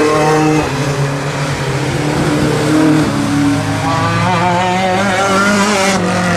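Hot rod race car's engine running hard, its note stepping down and up as the car goes into the bend, then wavering near the end.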